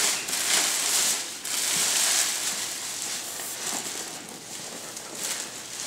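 Thick clear plastic sheeting crinkling and rustling as it is pulled off a large cardboard box, louder for the first couple of seconds, then softer.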